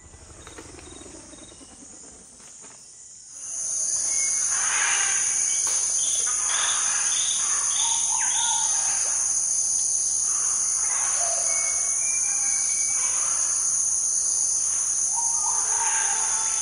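Rainforest ambience: a steady, high insect drone that comes in loud about three and a half seconds in, with birds calling and whistling over it.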